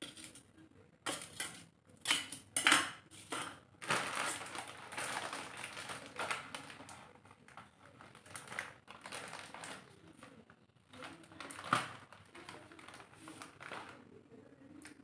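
Kitchen handling sounds: sharp knocks of utensils and a wok or steel bowl set down on the counter, and a long rustle a few seconds in as a plastic Maggi noodle packet is handled. Another clack comes near the end.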